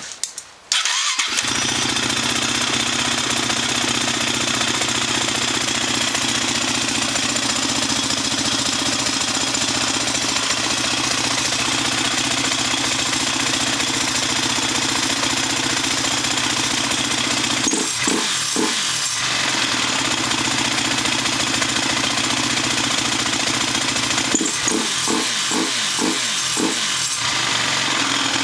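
Honda TRX450R's single-cylinder four-stroke engine, fitted with a new starter clutch, cranks on the electric starter and catches about a second in. It then idles steadily, with a brief rise and fall in engine note around the middle and a few quick revs near the end.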